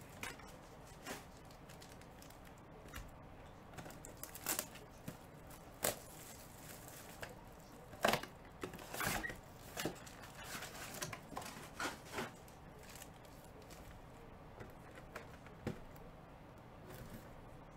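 Sealed trading-card packs and cardboard hobby boxes being handled: scattered taps, clicks and crinkles as packs are pulled from the box and stacked on the table, with a sharper knock about eight seconds in.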